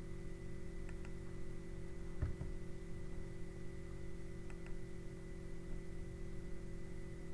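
Steady electrical hum of the recording setup, with a few faint clicks scattered through it.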